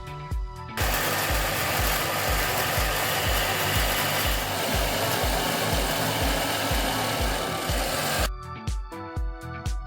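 Electronic background music with a steady beat. From about a second in until near the end, a loud, even rushing noise covers it, then stops abruptly.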